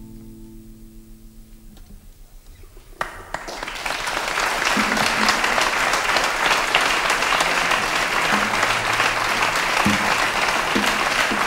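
A short hush, then audience applause breaks out about three seconds in and quickly builds to a steady level.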